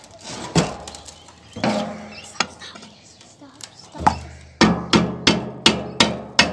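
Hammer blows on a screwdriver wedged into a cut in the steel casing of an aircon compressor motor, driving the casing off the copper-wound stator. A few spaced blows, then from about two-thirds of the way in a steady run of about three blows a second, each ringing briefly off the steel.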